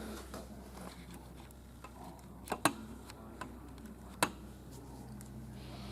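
A few short, light clicks or taps, two close together about two and a half seconds in and one more a second and a half later, over a faint steady hum.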